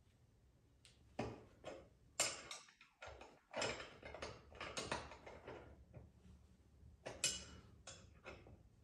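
Ratchet wrench clicking in short, irregular strokes as a nut is worked off, starting about a second in.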